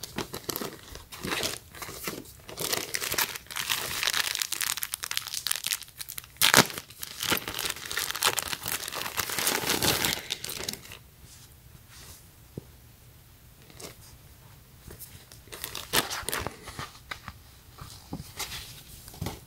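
Clear plastic packaging bag crinkling and crackling as it is handled and opened, dense for about the first ten seconds, then only a few scattered crinkles.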